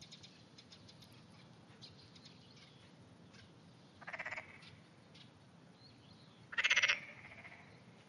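A frog calling twice: two short, rapidly pulsed croaks about two and a half seconds apart, the second louder. Faint scattered clicks come before them.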